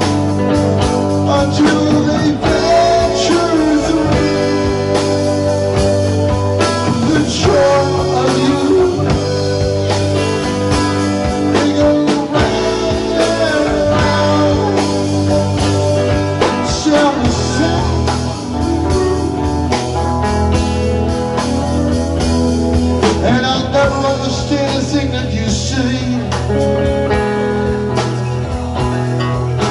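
A live rock band playing: electric guitar, electric bass, a Nord Electro keyboard and a drum kit, with sustained notes and a steady low end.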